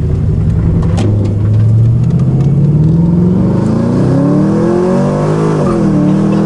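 V8 engine of a V8-swapped Mazda RX-8 pulling hard at full throttle, heard from inside the cabin: the revs climb steadily for several seconds, dip sharply at an automatic upshift about five and a half seconds in, then climb again.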